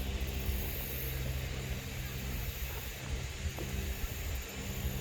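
A steady low engine drone with an even hum and a faint hiss over it.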